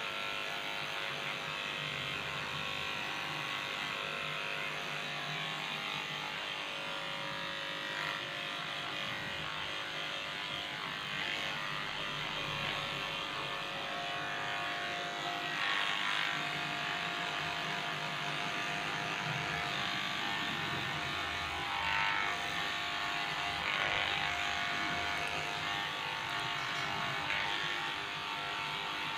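Electric dog clipper running with a steady buzz as it clips a shih-tzu's coat, with a few brief louder swells as the blade works through the fur.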